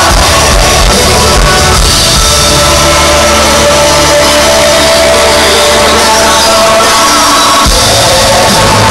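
A live rock band playing on stage, recorded from within the audience at a very high level, with crowd shouts mixed in.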